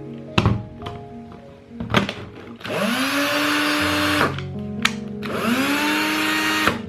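Cordless drill motor run twice on its NiMH battery pack: each trigger pull gives a whine that rises quickly in pitch, holds steady for a second or so, then cuts off. A few sharp clicks come before and between the runs.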